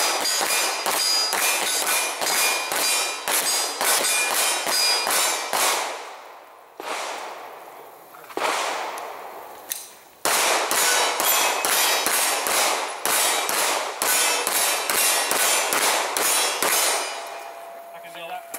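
Rapid handgun fire from several shooters, dozens of shots in quick succession with a metallic ring. Midway there is a lull of a few seconds with only two single shots, then a second long volley before the firing stops near the end.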